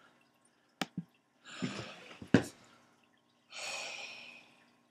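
A man lets out two heavy breaths, the second a long sigh near the end, with a few sharp clicks in between, one loud click about halfway.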